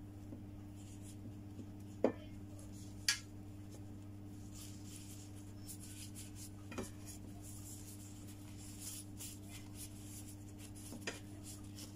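A metal spoon clinking a few times against a stainless steel colander as lumpia filling is scooped out, the two loudest clinks about two and three seconds in. Soft rustling of gloved hands folding and rolling the wrapper follows, over a steady low hum.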